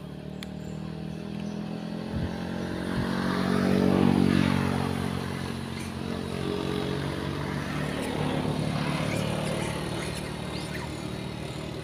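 A motorcycle passes along the road. Its engine grows louder to a peak about four seconds in and then fades, and a second engine swells and fades again later on.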